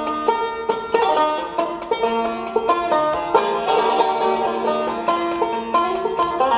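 Instrumental music played on a plucked string instrument, most like a banjo, in quick picked notes over a sustained low drone.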